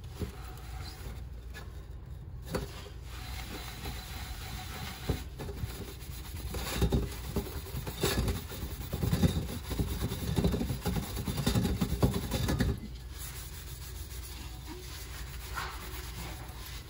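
Wet sanding sponge scrubbing over an epoxy-resin-coated tumbler with abrasive matte paste, dulling the glossy epoxy to a matte finish. The strokes are quick and irregular, and they grow louder and busier through the middle, then ease off again.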